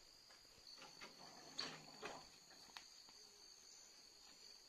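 Near silence with a faint, steady high insect trill throughout and two or three soft knocks a little under two seconds in.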